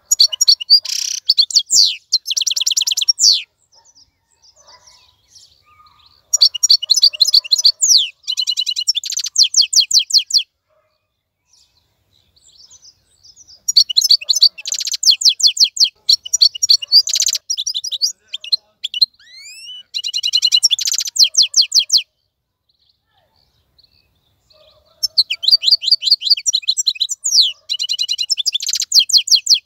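Wild-caught European goldfinch singing: five phrases of fast, high twittering and trills, each a few seconds long, separated by short pauses.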